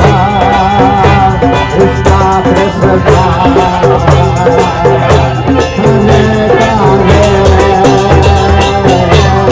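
Devotional kirtan: a man sings with vibrato over a portable harmonium's sustained chords, with a barrel drum beating a steady rhythm and a shaker.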